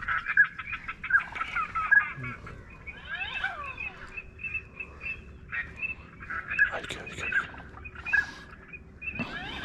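Duck calls: rapid runs of short, repeated notes in several bursts, with a few falling whistled notes about three seconds in.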